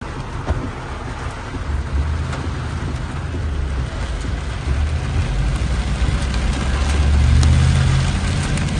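Vehicle engine running, heard from inside the cab, growing louder about seven seconds in, with heavy rain hissing and pattering on the windscreen and bodywork.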